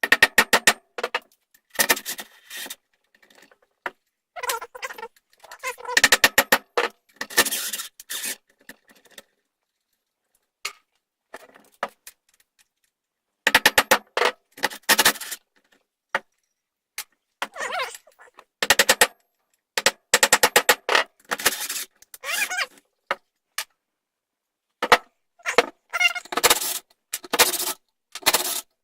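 Metal hand tools working at the chewed-up fasteners of a minibike's rear sprocket and brake disc: bursts of fast metallic clicking and knocking, broken by short pauses.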